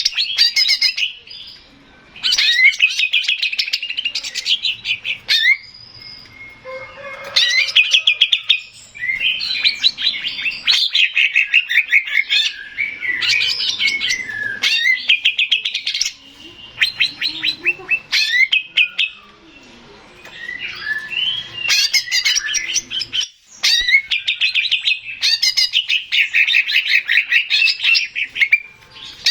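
Male green leafbird (cucak ijo) singing: phrases of rapid, chattering trilled notes, each lasting a second or a few, repeated with short pauses between.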